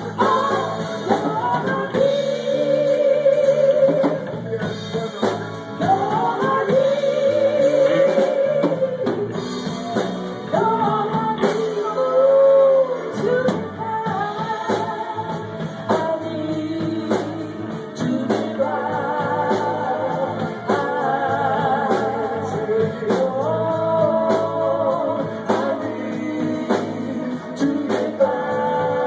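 Live band playing a song: a voice holds long wavering notes over electric guitar and a steady drum beat.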